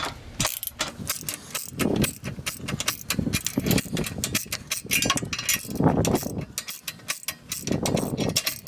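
Ratchet wrench clicking in quick, repeated strokes while tightening an exhaust pipe clamp.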